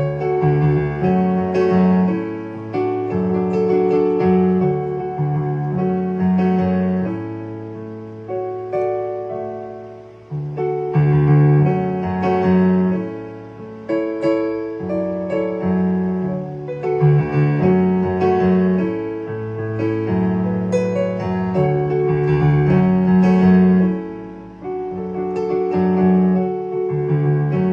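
A keyboard played solo: held chords over a moving bass line, in phrases with brief dips in loudness about ten and twenty-four seconds in, with no singing.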